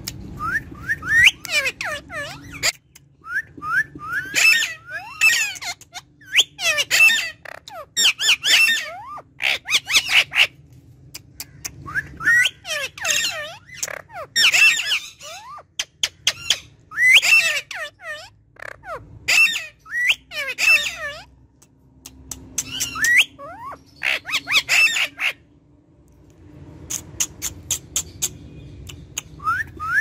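Male Indian ringneck parakeet chattering in repeated bursts of quick, high calls, with short pauses between bursts.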